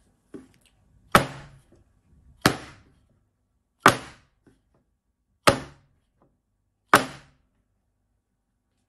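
A metal baking tray of piped macaron shells banged down hard on a wooden table five times, about a second and a half apart, after one light tap, each bang ringing briefly. The rapping bursts the large air bubbles in the macaron batter.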